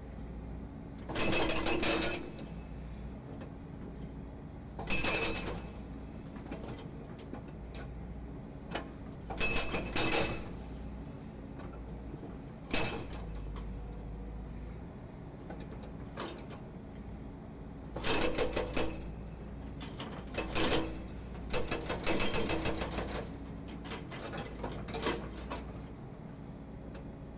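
Hydraulic breaker on a Volvo EC210D excavator hammering concrete pile offcuts in about eight short bursts of rapid blows, a few seconds apart. The excavator's diesel engine runs steadily between the bursts.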